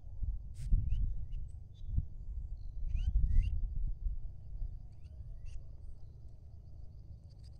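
Wind buffeting the microphone in gusts, loudest about three seconds in. Over it, birds give short sliding chirps, several times, and a faint steady high insect buzz runs underneath.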